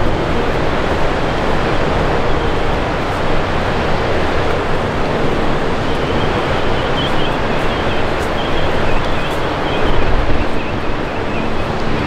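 Ocean surf breaking against the sea cliffs, a steady rush of noise mixed with wind on the microphone, swelling briefly about ten seconds in. Faint high chirping comes in over it in the second half.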